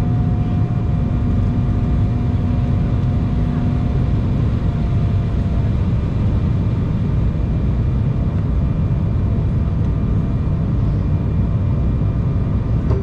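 Cabin noise inside an Embraer E195 airliner in flight on its descent: a steady deep rumble of the twin turbofan engines and rushing air. A faint steady hum sits over it and stops about five seconds in.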